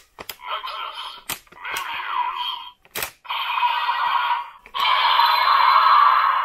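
Bandai DX Dark Z Riser toy playing its electronic sound effects through its small built-in speaker, thin and without bass. They come in runs broken by short gaps and several sharp plastic clicks as the Ultra Medals are moved and loaded.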